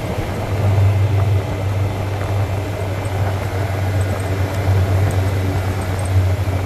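Side-by-side UTV engine running at a steady low drone while driving along a dirt trail, with a steady rushing noise over it.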